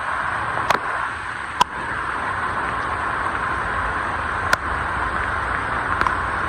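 Steady rain falling, an even hiss, with a few sharp taps of single drops or drips striking a hard surface.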